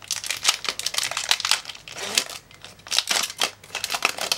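Foil wrapper of a Pokémon TCG booster pack crinkling and crackling as hands work it open: a rapid run of sharp crackles in clusters, with short pauses about two and three seconds in.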